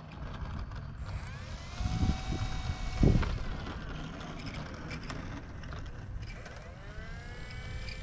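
Wind rumbling on the microphone, with two stronger gusts about two and three seconds in. Over it, the faint whine of the E-flite Valiant 1.3m's electric motor and propeller high overhead, rising in pitch and then holding, twice.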